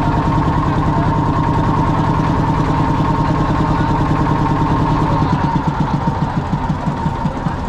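A boat's engine running steadily under way, with a pulsing low drone and a steady whine above it; about five seconds in, the running turns rougher and less even.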